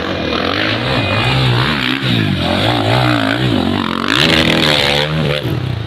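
Trail dirt bike engine revving hard as it climbs a steep dirt slope, the revs rising and falling over and over. It peaks in a long, high rev about four seconds in, then drops back near the end.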